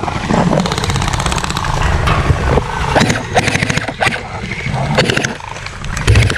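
Electric gel blaster firing on full auto in several bursts, a fast, even buzzing rattle.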